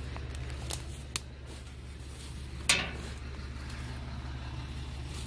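A few brief knocks and clicks against an old tractor's metal bodywork, the sharpest a little past halfway, from hands and camera bumping it while moving around the machine, over a steady low rumble.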